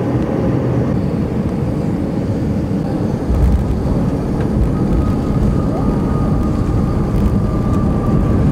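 Airliner cabin noise during landing: a steady, loud low rumble of jet engines and airflow, with a sudden low surge about three seconds in. A faint steady whine runs through the second half.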